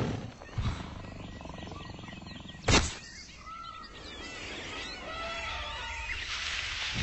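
Wild animal and bird calls over a steady low rumble, with a short, sharp loud crack about three seconds in and chirping calls after it.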